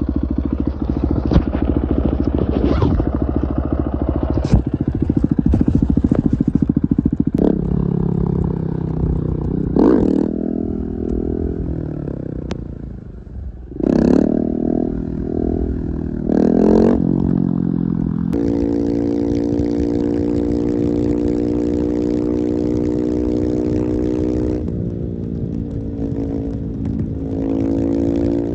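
Husqvarna 701's single-cylinder motorcycle engine pulling hard at full throttle. The pitch climbs and drops sharply several times through the middle as it is revved and shifted, then holds at a steady speed before a short dip and rise near the end.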